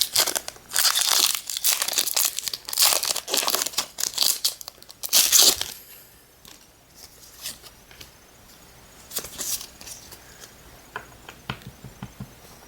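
A Pokémon booster pack's wrapper being crinkled and torn open, in loud rustling bursts for about the first six seconds, followed by softer clicks and rustles of the cards being handled.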